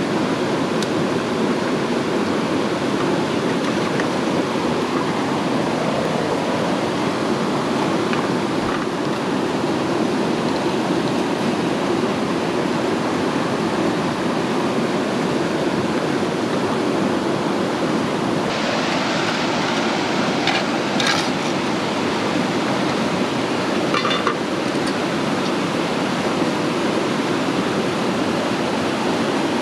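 Steady rushing water noise. About two-thirds through it briefly turns hissier, with a few clicks.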